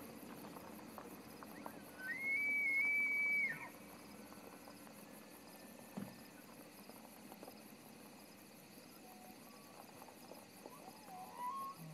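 A bull elk bugling: a high, clear whistle about two seconds in that rises, holds for about a second and a half, then drops away.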